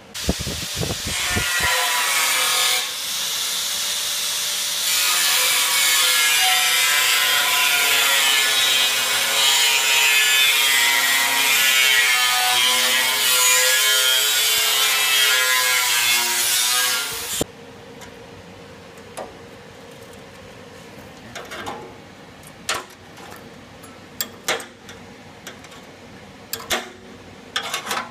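Angle grinder with a cut-off disc cutting through the steel wall of a tank, a loud grinding whine whose pitch wavers as the disc bites. It cuts off suddenly about two-thirds of the way through, followed by scattered sharp metal clicks and taps as a hand tool works the cut slots.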